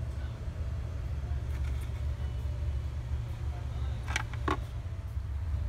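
Ram 2500 HD's Cummins diesel engine idling, a steady low rumble. Two sharp clicks come a little past four seconds in.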